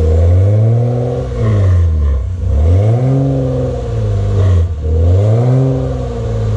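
A vehicle engine revving up and down in slow swells, its pitch climbing and falling about three times.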